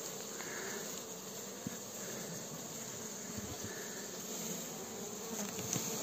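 Honeybee colony buzzing steadily in an opened hive. The winter cluster has broken up and the bees are agitated.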